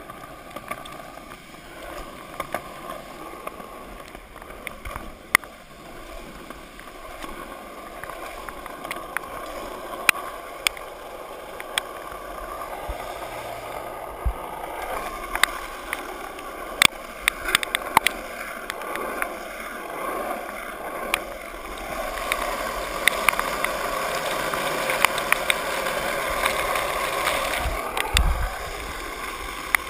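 Skateboard wheels rolling fast over wet asphalt and through puddles, throwing up spray: a steady rushing hiss of water that grows louder over the second half and eases near the end, with many sharp clicks and pops under the wheels.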